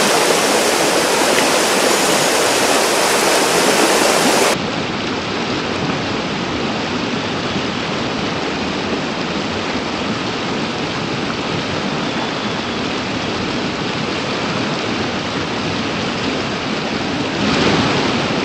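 Rushing water of a shallow mountain torrent pouring over stones and riffles, a steady hiss. About four and a half seconds in it drops a little and turns duller, then swells again near the end.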